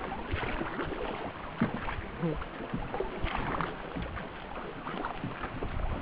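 Small canoe moving through river rapids: water rushing and splashing against the hull, with irregular knocks throughout.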